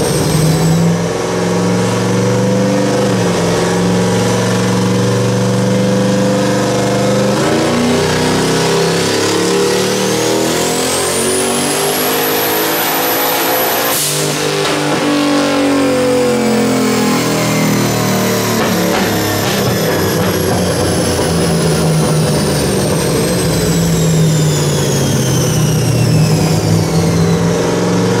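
Turbocharged 5.3 V8 making a full-throttle dyno pull. The engine revs climb while the big S475 turbo's whine rises to a high, steady whistle. About halfway through the throttle snaps shut, and the turbo whine falls away slowly as the engine winds down.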